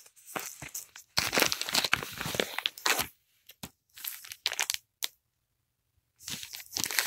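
Crinkling and rustling of a clear plastic sleeve and a paper mailing envelope being handled, in uneven bursts with short quiet gaps; loudest from about one to three seconds in.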